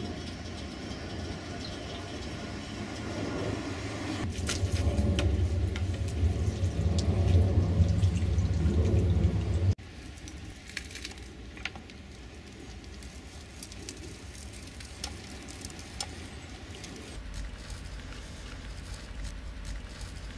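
Water from a garden hose running into the water tank of a miniature steam traction engine, swelling louder as it goes, then cutting off suddenly just under ten seconds in. After that there is only a low steady background with scattered light clicks.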